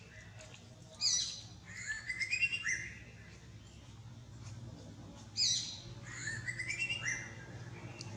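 A bird singing the same short phrase twice, about four seconds apart: a high falling note, then a quick run of rising chirps. A low steady hum lies underneath.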